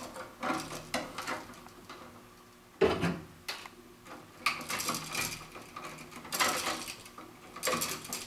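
Pliers twisting the equipment-ground wires together into a splice: irregular metallic clicks and scraping, with a sharp knock about three seconds in.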